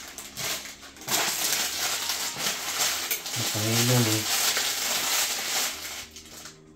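Plastic instant-noodle seasoning sachets crinkling as they are handled, torn open and squeezed out over the noodles, a dense rustle for several seconds.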